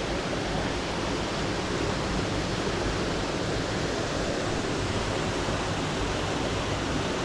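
Steady rush of a waterfall: falling water making an even, unbroken roar.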